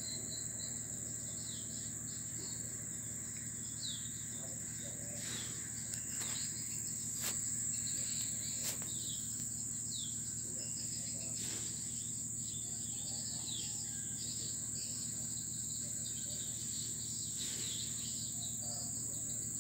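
Steady high-pitched drone of an insect chorus, with short falling chirps scattered through it and a few faint clicks.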